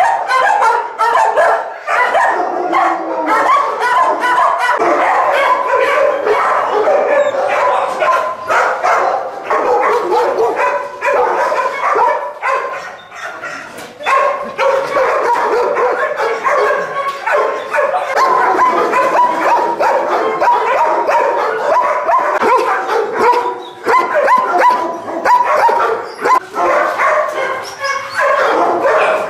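Many boarded dogs in kennel runs barking, yipping and whining at once: a loud, continuous overlapping din of short calls with no break.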